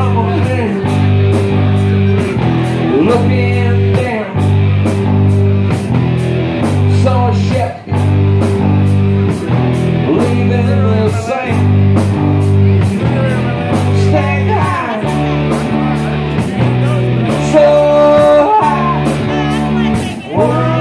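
Live blues-rock band playing loudly: electric guitars, electric bass and a drum kit keeping a steady beat with regular cymbal strokes, with a lead vocal sung over it.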